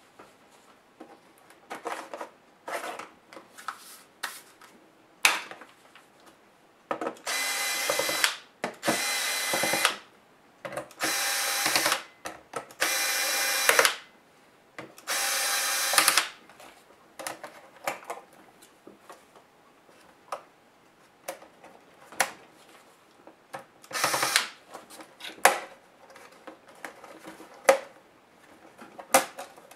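Cordless electric screwdriver whirring in short runs of about a second each as it backs out the bottom-cover screws of an HP G71 laptop: five runs close together, then one shorter run later. Light clicks and knocks of screws and plastic fall between the runs.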